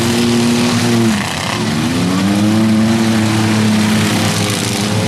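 Demolition derby car engines revving hard and held at high revs while the cars shove against each other with wheels spinning in the mud. The revs drop about a second in, then climb back and hold.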